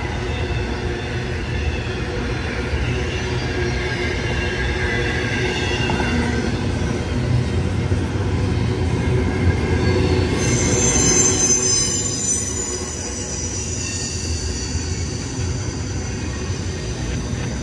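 CSX intermodal freight train rolling past with a steady rumble of cars on the rails. About ten seconds in, a high, steady wheel squeal sets in.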